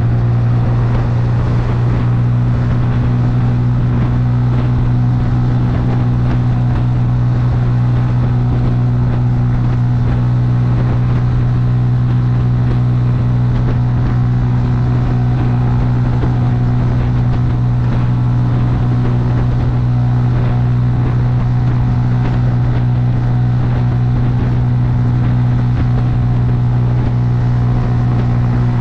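Bajaj Boxer motorcycle's single-cylinder four-stroke engine running steadily at cruising speed, its hum holding an even pitch.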